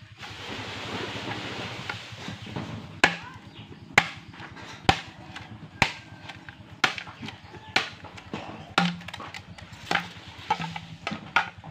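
A machete blade striking a green bamboo pole in sharp knocks, about once a second, as the pole is split into strips. A steady hiss fills the first couple of seconds before the strikes begin.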